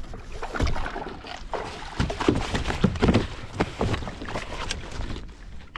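Irregular splashes and knocks against a plastic kayak hull as a small tope shark is landed and handled.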